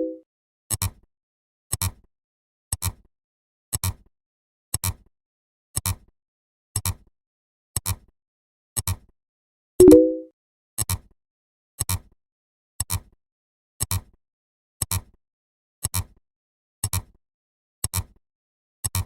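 Short sharp double clicks, evenly spaced about once a second, with a louder pitched beep at the start and again about ten seconds in, likely marking every tenth number of the count.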